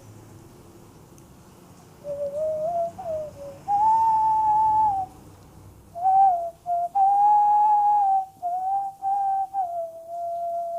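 A person whistling a Bollywood song melody by mouth: a pure single tone in held, slightly sliding notes and short phrases with brief breaks. It starts about two seconds in and ends on a long held note.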